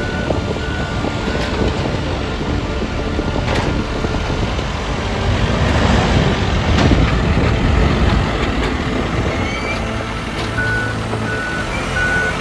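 Heavy road-paving trucks and machinery running with a steady low rumble. A vehicle's reversing alarm beeps at the start and again near the end.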